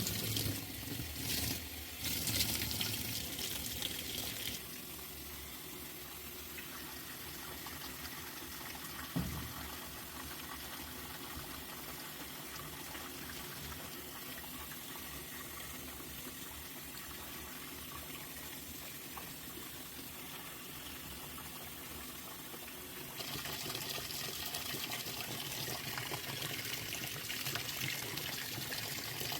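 Washing machine taking in water: a steady rush of water, louder for the first few seconds, quieter from about five seconds in, then louder again near the end, with one short thump near nine seconds.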